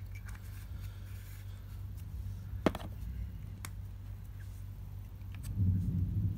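Small handling noises on a tabletop with plastic specimen vials: one sharp click about two and a half seconds in, a lighter tap about a second later, then a low rubbing rumble near the end, over a steady low hum.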